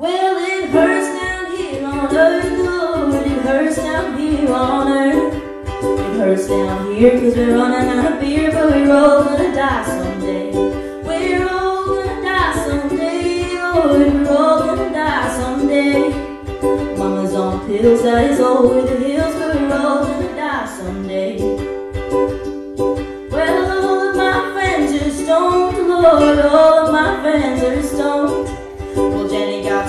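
A female singer performing a song to her own strummed ukulele, the chords ringing steadily under the sung melody. It begins abruptly, mid-performance.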